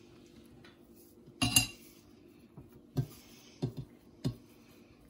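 A metal spoon clinks once against a china plate with a short ring, about a second and a half in, followed by a few soft knocks of the plate as a crêpe is folded on it.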